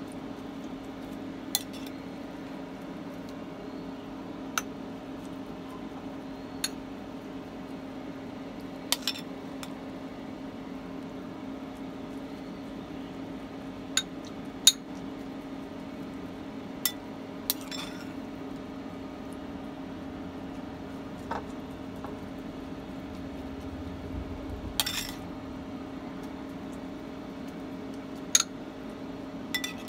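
A metal spoon clinking and scraping against ceramic bowls, about a dozen sharp clinks at irregular intervals. Under them runs a steady low hum from the induction cooktop.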